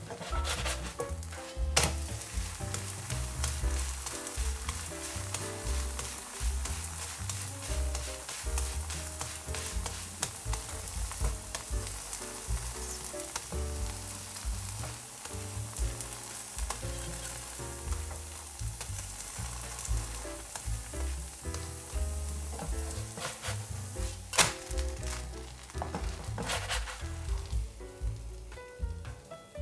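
A thin potato batter flatbread sizzling in oil in a nonstick frying pan, with a steady crackle. A few sharp clicks of the plastic spatula against the pan come through, the loudest about 24 seconds in. Background music plays underneath.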